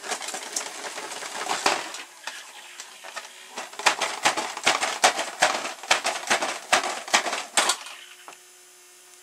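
A homemade crawler bot, driven by a vibrating electric toothbrush motor, clatters irregularly against a wooden desk as its stick frame and CD wheels shake. The clatter stops near the end, leaving the steady buzz of the toothbrush motor.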